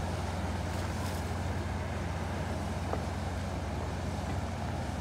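Boat engine running steadily with a constant low drone, under wind and water noise.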